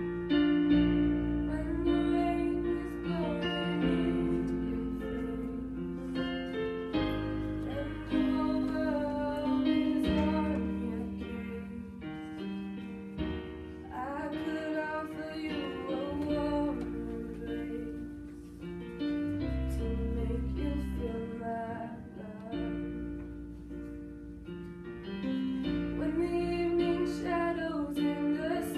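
A young woman singing solo, holding and sliding between notes, over an accompaniment of chords that change every second or two.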